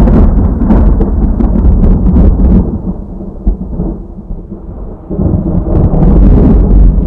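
Rolling thunder: a deep rumble with crackles, loud at first, easing off in the middle and swelling again near the end.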